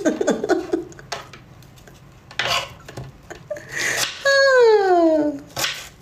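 A woman laughing in short breathy bursts, with a long high vocal note sliding down in pitch for about a second near the end, and a few light taps early on.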